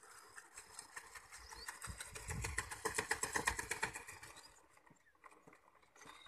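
Rope running over the wooden pulley of a deep draw-well, a rapid rattling clicking that grows louder toward the middle and fades out about four and a half seconds in.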